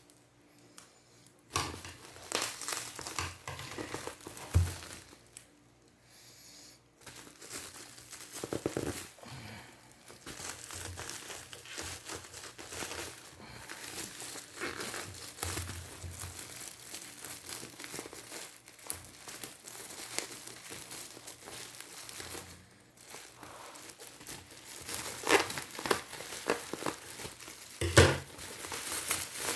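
Sealed packaging on a DJI Osmo Mobile 3 Combo box being torn open and crumpled by hand, an irregular crinkling and crackling that pauses briefly a couple of times.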